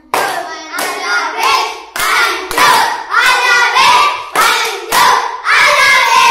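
A group of boys chanting loudly together in short rhythmic shouts, about two a second, with hand claps.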